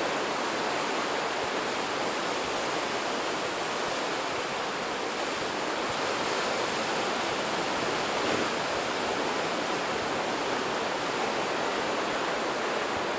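Steady, unbroken rushing of ocean surf.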